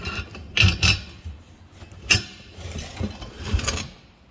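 Metal clanking and knocking as steel-angle brackets and stainless threaded rods are handled and fitted together on a steel workbench: a few knocks about half a second in, a sharp one about two seconds in, and a cluster near the end.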